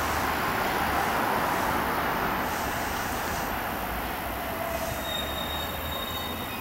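JR East E233-series electric commuter train running into a station as it slows, a steady rushing of wheels on rail that gradually eases. A thin, high squeal comes in about five seconds in.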